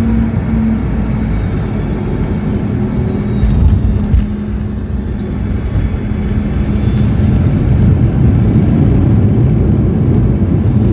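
Boeing 717-200 landing, heard from inside the cabin: a loud steady rumble of the airframe and rear-mounted engines, with a couple of thumps about four seconds in as the wheels touch down. From about eight seconds the engine whine rises and the roar grows louder, typical of reverse thrust on the landing roll.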